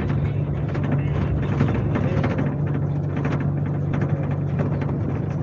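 Scania K370C coach's five-cylinder diesel engine running under way, heard on board. It makes a steady low hum that steps up slightly in pitch at the start, with road and body noise over it.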